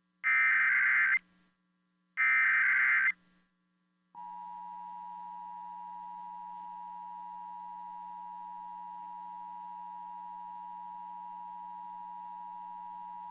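Emergency Alert System test tones: the last two of three SAME header data bursts, each under a second long and about a second apart. After a short gap, the steady two-tone EAS attention signal starts about four seconds in and holds.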